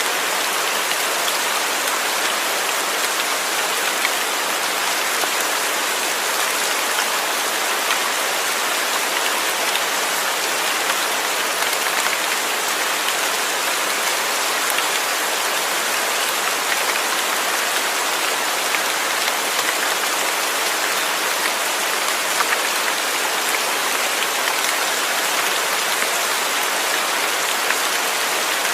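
Steady rain falling on a surface: an even hiss with scattered drop ticks.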